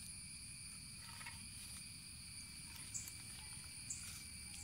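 Steady high-pitched insect buzz, with a couple of faint short clicks about three and four seconds in.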